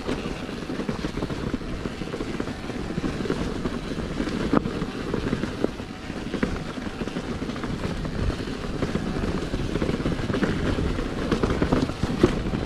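Mountain bike riding over a rough trail: a continuous rumble of tyres on stony ground, dotted with many small rattles and knocks.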